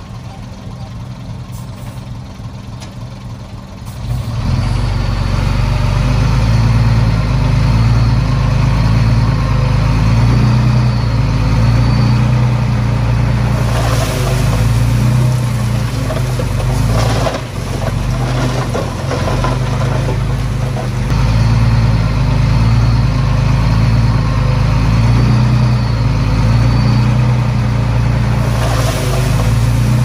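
Heavy diesel engine of an earthmoving machine working under load. It steps up sharply in level about four seconds in, with a high wavering whine coming and going and short bursts of clattering stone around the middle and near the end.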